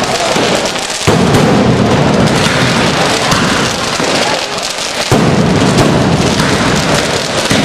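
A dense daytime barrage of firecrackers: rapid, continuous crackling bangs, with louder, fuller surges breaking in about a second in and again about five seconds in.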